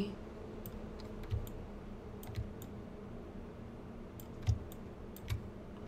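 Several scattered clicks of a computer mouse and keyboard, some in quick pairs, over a faint steady low hum.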